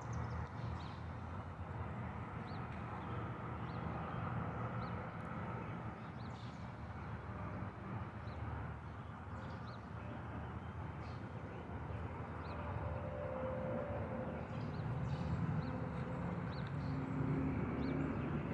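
Pickup truck driving at a distance, a low steady rumble that grows louder near the end, with a bird chirping briefly every second or two.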